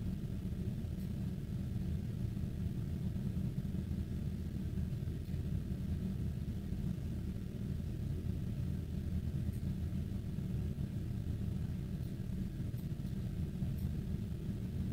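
Steady low background rumble with a few faint clicks scattered through it.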